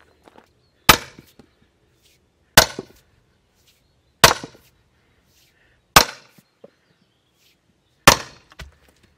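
A long-handled hammer striking a steel splitting wedge driven into a firewood log, five hard, evenly spaced blows with a short ring after each, every strike driving the wedge deeper to split the round.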